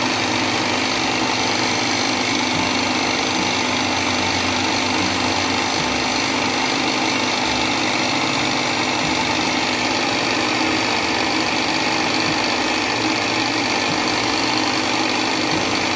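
Electric food processor motor running steadily at high speed, its blade churning a thick mixture of minced mutton, egg and ground chickpeas into a paste.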